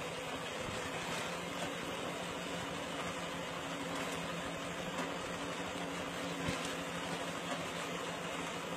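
Small engine of a compact wheat reaper running steadily with a constant hum while the machine cuts standing wheat.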